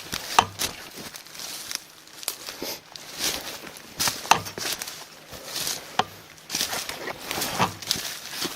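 Footsteps crunching on a forest path, roughly one step a second, with sharp crackles as debris underfoot is stepped on.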